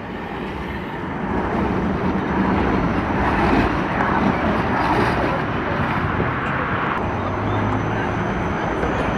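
City street traffic noise, a steady wash of vehicles, fading in over the first couple of seconds, with a low hum that comes in briefly near the end.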